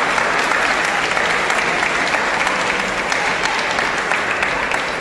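Arena crowd applauding a won point in a table tennis match: steady, dense clapping that begins to die away near the end.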